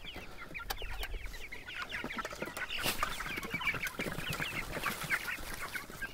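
A flock of young meat chickens, about two weeks old, cheeping continuously in many short, high calls while they wait to be fed, with a few sharp knocks among them.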